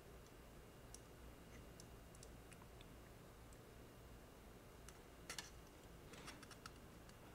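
Near silence with faint, scattered clicks and ticks of a through-hole LED's wire legs and a printed circuit board being handled as the legs are worked into the holes, a small cluster about five seconds in and a quick run of light clicks a second later.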